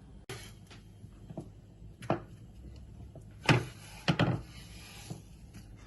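A few irregular knocks and clicks of things being handled on a kitchen counter, the loudest about three and a half seconds in and a quick pair just after four seconds.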